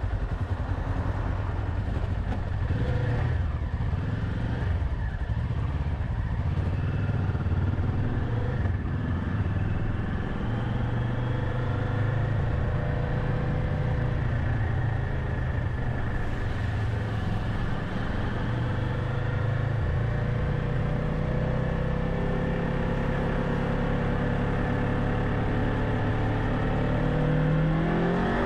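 Kawasaki Ninja 500's parallel-twin engine running steadily under way, its note wandering slightly. Near the end the revs climb as it accelerates.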